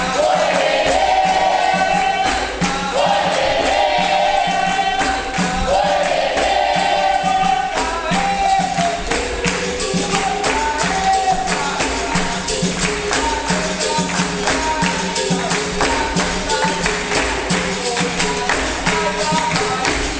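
Capoeira roda music: a group singing in chorus over the pandeiro and other percussion, which keep a steady, even beat. The singing drops away about eight seconds in while the percussion carries on.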